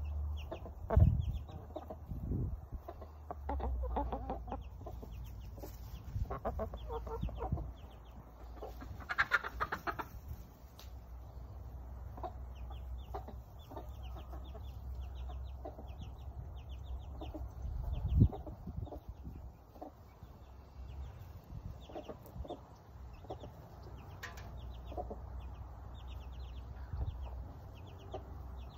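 Hens clucking as they forage, with small chicks peeping in quick, continual runs of short high chirps. A louder call stands out about nine seconds in.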